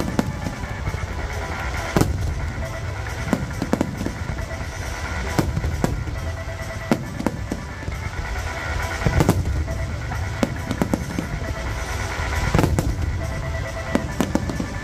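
Aerial fireworks display: shells bursting in an irregular string of sharp bangs, with the biggest near the start, the middle and toward the end. Music plays alongside.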